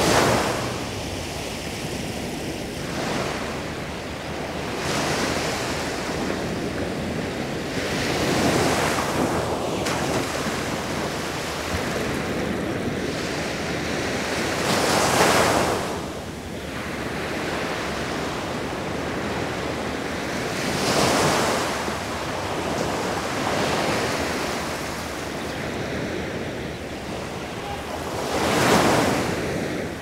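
Sea waves breaking on a beach, a rushing surf that swells and fades irregularly every few seconds. The biggest breakers come about halfway through and near the end.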